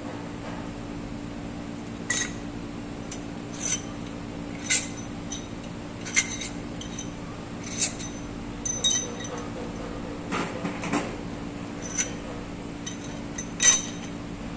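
Sharp metallic clinks of a socket wrench and steel engine parts knocking together, about a dozen at irregular intervals, while the valve gear on the cylinder heads of an inline engine is worked on. A steady low hum runs underneath.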